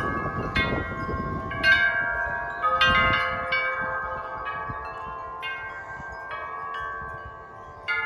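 Several wind chimes ringing in gusty wind, struck at irregular moments so that their long tones overlap. Wind rumbles on the microphone for the first three seconds or so.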